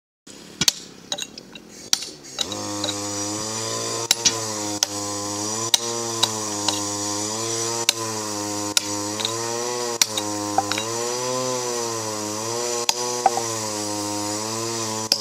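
Hand hammer striking steel wedges set in a sandstone block to split it: sharp metallic clinks, about one every half second to a second. From about two and a half seconds in, a steady droning hum, wavering slightly in pitch, runs under the strikes.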